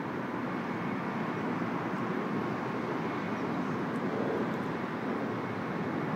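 Steady, even rushing noise of outdoor city ambience heard from high above the streets, with no distinct events.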